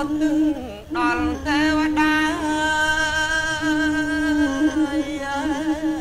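Male Yike theatre singer performing a sung lament, drawing out long held notes whose pitch bends and wavers.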